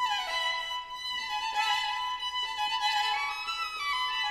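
Background music led by a violin, playing quick falling runs over a held note.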